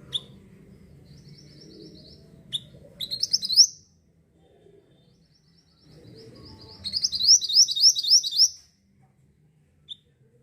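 Mantenan bird singing two bursts of rapid high repeated notes, each building into a run of louder upward-sweeping notes, with a few single sharp chips between.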